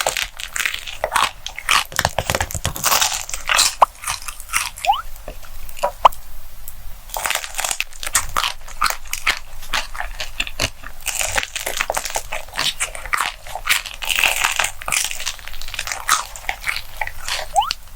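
Close-miked eating ASMR: repeated bites and chewing of a crusty salt bread dessert, with dense, irregular crunches and crackles throughout.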